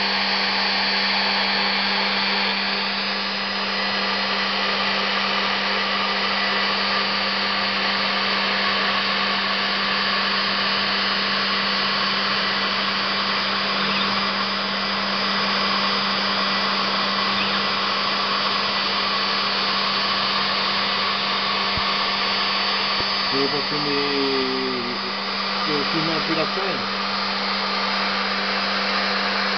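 CNC machine spindle running steadily while a small end mill cuts into a metal sheet, a constant hum under a continuous cutting hiss. Near the end a few brief tones waver in pitch.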